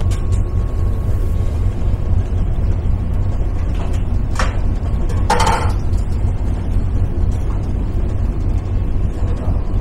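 Steady low rumble of the ferry's engines heard on board, with a couple of short knocks a little past the middle.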